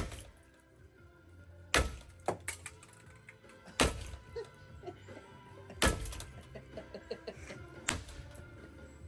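Music playing, with five loud, heavy thuds about two seconds apart.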